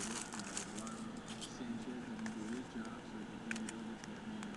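Faint crinkles and small clicks of fingers picking at and peeling the cellophane wrap of a 2007 Upper Deck Black baseball card pack.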